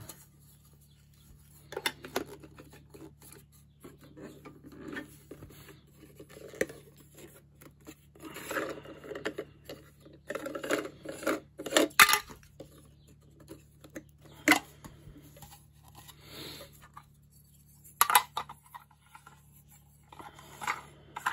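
Plastic parts of a cage water feeder being handled and fitted together: scattered light clicks, knocks and rubbing, with sharper clacks about twelve and eighteen seconds in.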